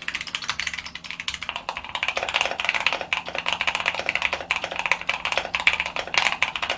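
Fast typing on a Keychron Q1 Pro mechanical keyboard: a dense run of key clacks, comparing the keyboard as it was with the same board modded with different switches and foam lining inside the case. The character of the typing sound changes about a second and a half in.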